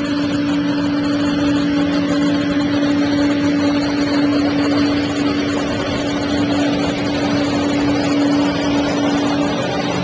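An engine running at a steady speed: a constant low hum over loud, even noise, starting suddenly.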